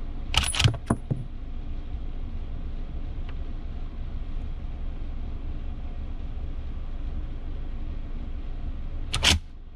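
Sharp metallic clicks and clacks of an M1 Garand's action being handled while a failure to feed is checked, clustered about a second in, with one louder clack near the end, over a steady low rumble.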